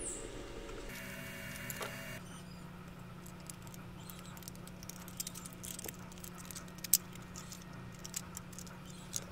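Light clicks and taps of 3D-printed PLA plastic parts being handled and fitted together, with one sharp click about seven seconds in, over a faint steady low hum.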